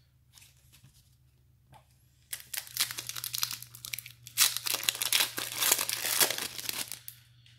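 Foil wrapper of a 1992-93 Fleer Ultra basketball card pack being torn open and crinkled by hand. A few faint handling clicks come first, then from about two seconds in a long stretch of crackling and tearing that is loudest near the middle and dies away near the end.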